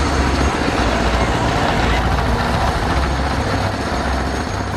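Steady low mechanical rumble, engine-like, over a continuous noisy fairground background.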